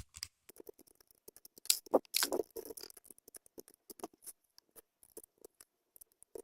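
Plastic pieces of a 5x5 speed cube clicking and scraping as they are slid out of the puzzle and pulled off during disassembly: an uneven run of short clicks, busiest about two seconds in.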